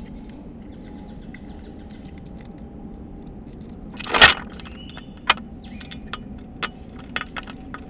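A short, loud rustle about halfway through, then a scattering of sharp clicks and snaps, over a steady faint hiss and hum.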